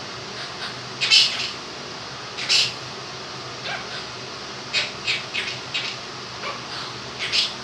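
Quaker parrot (monk parakeet) giving short, high chirps and squawks in irregular bursts: two loud single calls, then a quick run of calls, then one more near the end. A steady electric fan hiss runs underneath.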